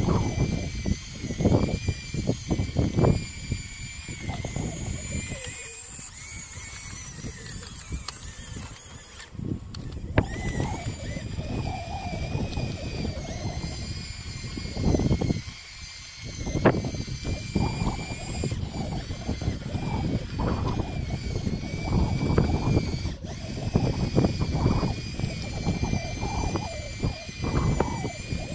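Electric drive motors and gearboxes of a radio-controlled Bruder Cat D5 model bulldozer whining steadily, the pitch wavering as it drives and pushes dirt with its blade. Irregular low rumbling sits underneath.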